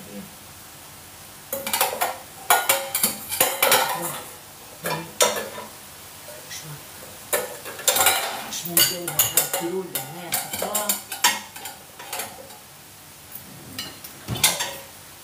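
Dishes, metal pots and cutlery clattering and clinking in irregular bursts as they are handled and set down.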